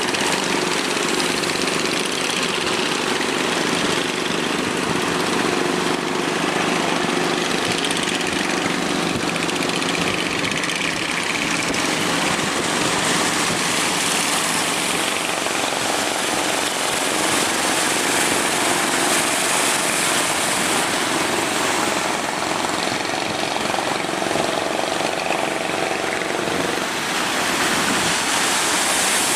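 Boat engine running steadily over a loud, continuous rush of surf and breaking waves.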